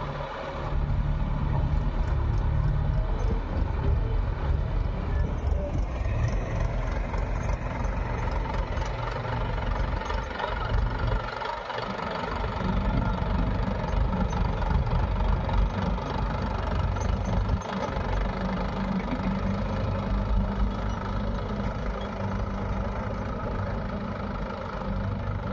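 Heavy diesel engine running at idle, steady apart from a couple of brief dips.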